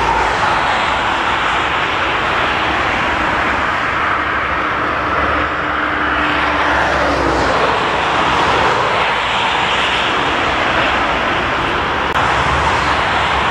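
Jet engines of an Airbus A320-family airliner running at taxi power, a steady rushing engine noise.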